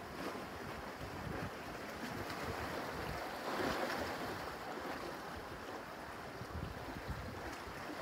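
Small ocean waves washing in over shoreline rocks, with a swell of surf about three and a half seconds in. Wind gusts rumble on the microphone.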